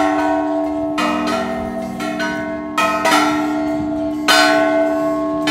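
Large hanging metal tube chimes struck by a chain-pulled paddle striker, ringing in several clear, long-sustaining tones. A fresh strike comes every one to two seconds, each ring overlapping the last.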